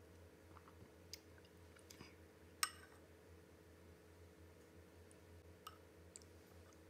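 A few faint clicks of a metal spoon against a ceramic bowl as it scoops soft tofu pudding, the sharpest about two and a half seconds in, over a faint steady hum.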